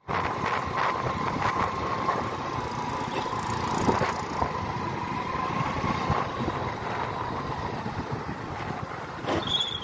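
Small commuter motorcycle's engine running at a steady cruising speed while riding, with road noise and a steady high whine.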